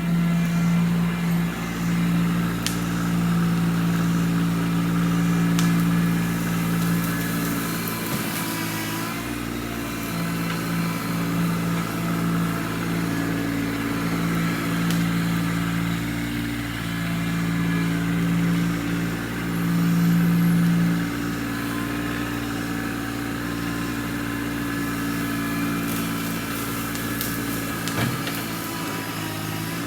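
An engine running steadily at idle, a constant low hum with a few faint sharp ticks over it.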